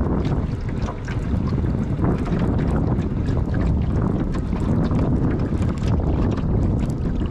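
Wind buffeting the microphone: a loud, steady rumble with frequent short crackles.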